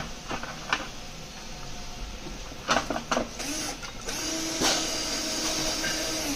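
Cordless drill-driver motor running steadily from about four seconds in, driving a screw into a scooter's front fender; the screw is only run in, not yet tightened. Before it, a few short knocks and clicks of the parts being handled.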